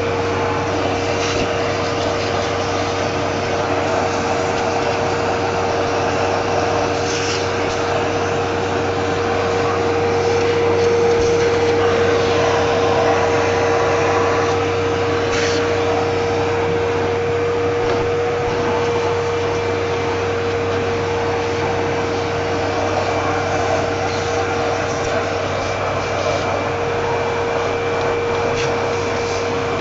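Vacuum cleaner running steadily with a constant whine, sucking dust from a refrigerator's coil, with a few brief knocks and rubs of the nozzle against the parts.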